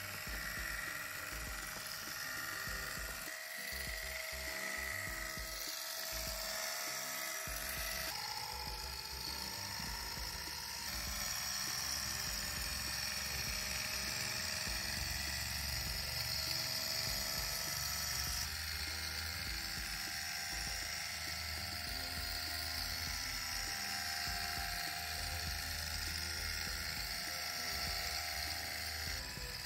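Small electric motor of a Cyberdog Wheelbarrow gyroscopic balancing robot-dog toy spinning its flywheel, a steady high whine. Its tone shifts abruptly about eight seconds in and again about eighteen seconds in.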